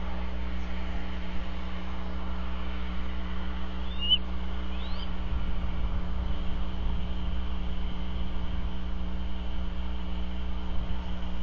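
Steady low hum with an even hiss over it, and two short rising bird chirps about four and five seconds in.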